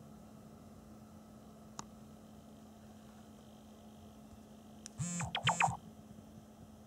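Steady low electrical hum and hiss of room tone. There is a faint click just under two seconds in and two short, louder noises in quick succession about five seconds in.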